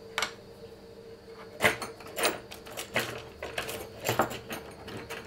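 3D-printed plastic parts being handled and set down on a cutting mat: a series of light clacks and knocks, over a faint steady hum.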